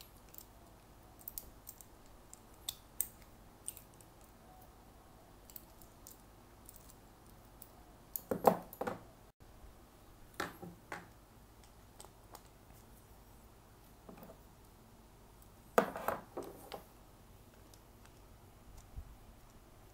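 Light scattered clicks of a hex key on a multitool working the bolt of a Shimano SPD pedal's plastic platform adapter. Two louder bursts of clattering knocks come about eight and sixteen seconds in.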